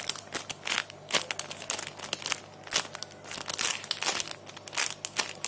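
Squishy-toy packaging crinkling and crackling as it is handled, in an irregular run of sharp crackles.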